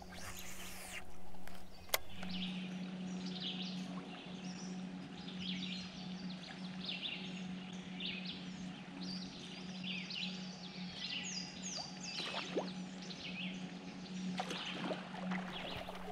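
Songbirds singing, a steady run of short high chirps and trills, over a low steady hum. There is a sharp click about two seconds in.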